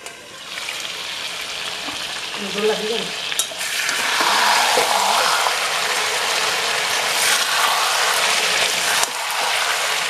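Chicken pieces sizzling in oil and masala in an aluminium kadai, being slow-fried for kosha with the chicken giving off its own oil. A click comes about three and a half seconds in, and after it the sizzle is louder.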